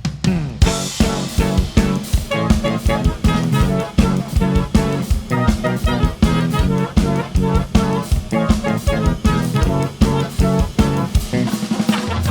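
Live band music: a busy, fast drum kit groove over a strong bass line, with plucked-string or keyboard parts.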